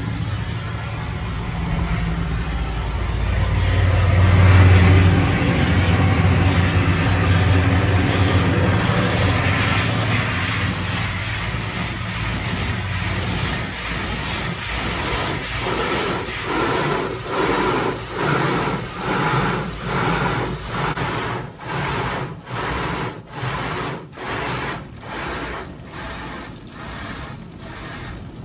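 Tunnel car wash equipment spraying water and foam onto a car, heard from inside the car, over a low machine hum. Partway through, the spraying turns into a regular swish that comes and goes a little over once a second.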